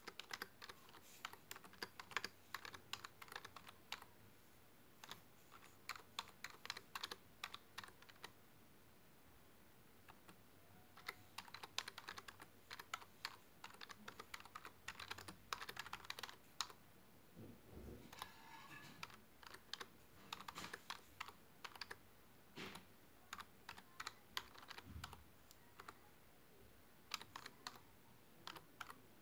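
Typing on a computer keyboard: quick runs of keystrokes with short pauses between them and two longer pauses, one about a third of the way in and one near the end.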